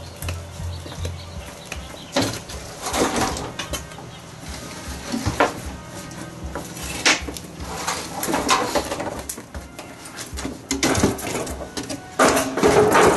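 Irregular knocks, scrapes and clatter of boards and junk being handled and moved about, the loudest cluster near the end.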